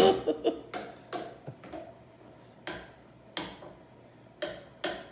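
A stick knocking against a hard object, about a dozen sharp knocks with a short ring after each. They come quickly at first, then sparser and fainter.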